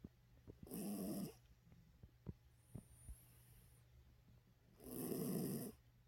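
A small white curly-coated dog snoring in its sleep: two slow snoring breaths about four seconds apart, the second longer, with faint clicks in between.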